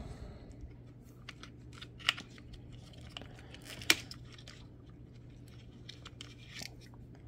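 Hands handling the wiring, plug connectors and battery on a 1/18-scale RC truck chassis. Light clicks and rustles of plastic and wire, with two sharper clicks about two and four seconds in.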